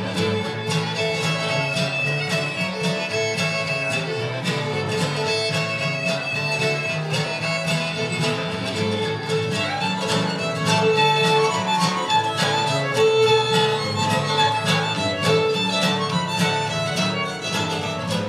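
A young fiddler playing a lively fiddle tune at a fiddle contest, with a steady strummed guitar accompaniment keeping the rhythm.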